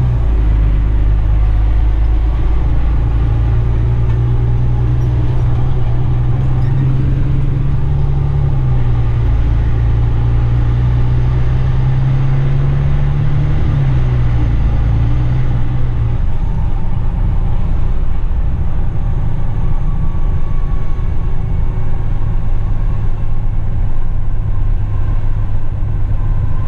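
Dump truck's diesel engine running steadily while the truck drives along a road, a loud low drone with road rumble. The engine hum rises a little twice and eases off about two-thirds of the way through, leaving a plainer rumble.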